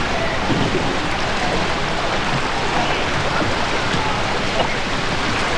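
Steady splashing of many canoe paddles in the water from a large pack of canoes paddling together, with indistinct voices calling over it.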